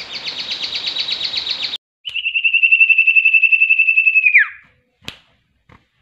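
Common iora (cipoh) singing rapid, rattling trills of evenly repeated notes. A high trill breaks off abruptly, then a lower trill of about two seconds ends in a falling note. The lower trill is the bird's imitation of automatic gunfire ('AK-47 shooting'). Two short clicks follow near the end.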